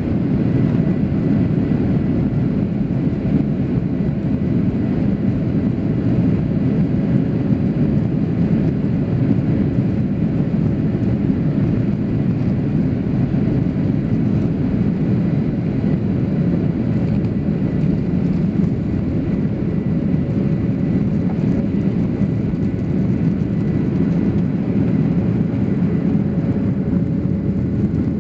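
Boeing 737 jet engines at takeoff thrust, heard from inside the cabin over the wing: a steady, loud rumble with a faint steady whine above it, through the takeoff roll and liftoff.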